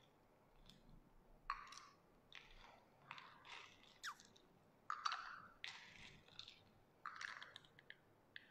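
Faint scraping and clinking of a long bar spoon stirring a drink in a tall glass, in short, irregular strokes.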